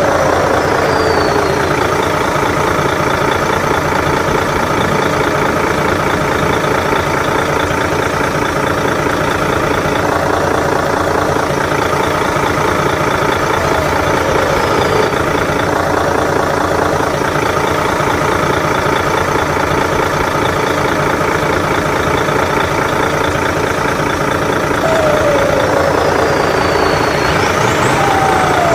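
Simulated diesel truck engine sound played by a large electric RC truck's onboard sound module, running steadily. A turbo whistle glides down in pitch near the start, again about halfway, and near the end, where it sweeps sharply up before falling again.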